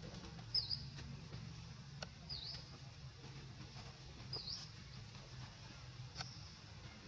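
Three short, high-pitched animal chirps about two seconds apart, each dipping and then rising in pitch, over a faint steady low hum.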